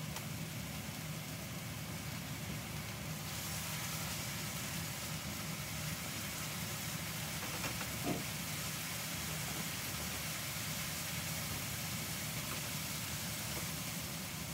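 Steady hum of a kitchen range hood fan, with a brighter hiss joining about three seconds in and a single light knock about eight seconds in.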